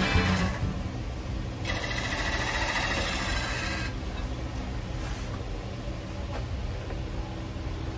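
Background music fades out at the start. Then a Robust American Beauty wood lathe runs with a steady motor hum while a gouge cuts the spinning oak vase blank, the cutting clearest about two to four seconds in.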